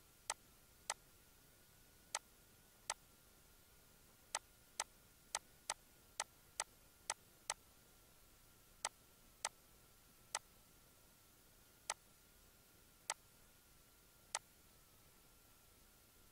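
Computer mouse button clicking, about eighteen sharp clicks at an uneven pace, some in quick runs, as objects are selected and deleted in CAD software. A faint steady high hum runs underneath.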